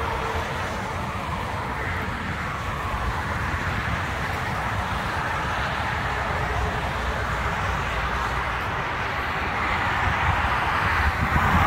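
Motorway traffic passing at speed: a steady rush of lorry and car tyre noise with engine sound, swelling near the end as a vehicle goes by.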